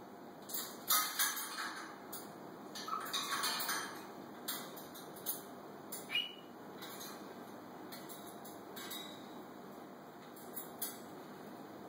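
Timneh African grey parrot making a scattered run of short clicks, chirps and soft chatter, with a brief whistled note about six seconds in.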